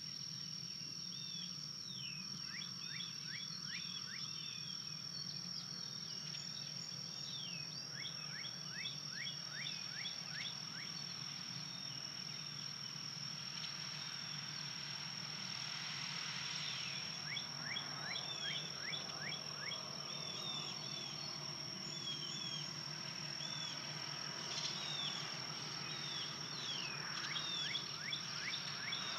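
Outdoor evening ambience: small birds chirping in quick short series again and again, over a steady high-pitched whine and a low hum.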